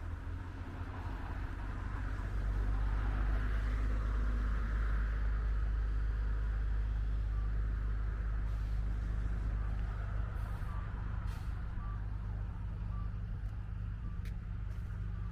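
A heavy vehicle such as a truck running with a deep, steady rumble that grows louder about two seconds in. From about halfway, a reversing alarm beeps about once a second.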